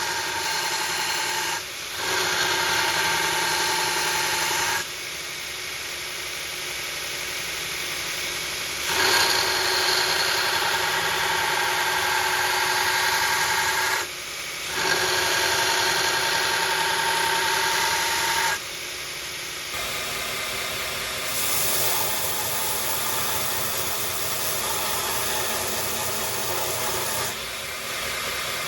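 A machine running steadily with a hum and hiss, growing louder for stretches of a few seconds at a time and dropping back in between.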